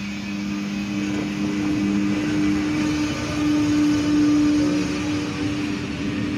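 ZSSK class 362 electric locomotive passing slowly at close range, with a steady two-note electrical hum over the rumble of wheels on rail. The lower note stops about two seconds in, and the rumble swells to its loudest as the first passenger coaches roll by.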